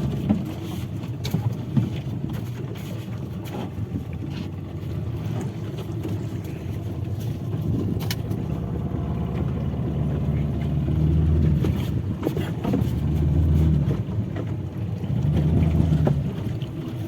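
Fishing boat's engine running as a low rumble that swells up three times in the second half, with scattered knocks and clatter.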